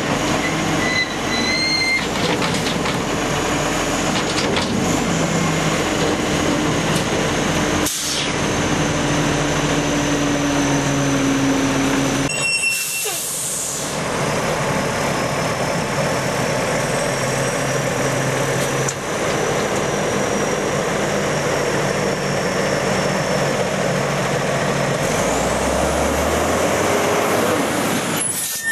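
Sterling rubbish truck at work: the diesel engine runs steadily under a hydraulic whine as the loader bucket lifts and tips its load into the body, with air-brake hisses.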